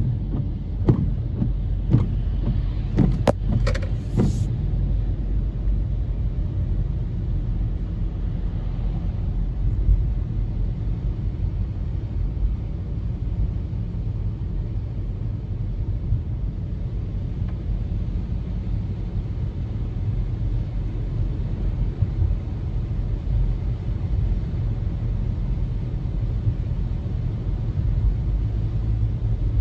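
Steady low rumble of a car on the road, heard from inside the cabin, with a few sharp clicks or knocks in the first few seconds.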